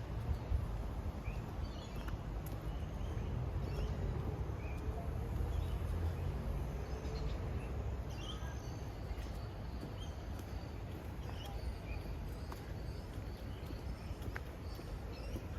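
Outdoor ambience: scattered short bird chirps over a steady low rumble, with a faint sliding hum in the middle.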